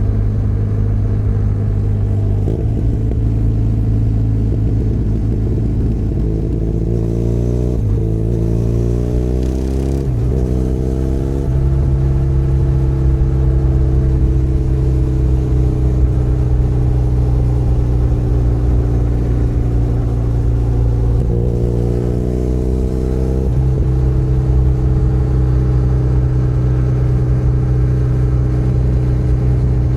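Benelli Leoncino 500 Trail's parallel-twin engine running under way. Its pitch climbs in short steps, with quick drops between them, from about seven to eleven seconds in and again briefly after twenty-one seconds, as the bike accelerates through gear changes. Between these it holds a steady pitch.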